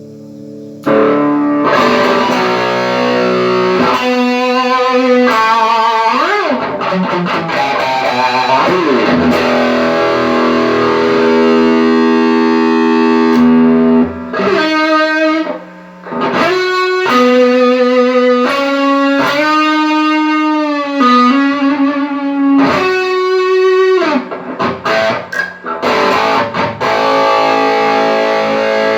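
Electric guitar played through a Mesa Boogie JP-2C tube amplifier with a distorted lead tone, starting about a second in. It plays melodic lead lines with string bends and sustained notes. This is a sound test showing the amp working after repair of a broken slider potentiometer shaft.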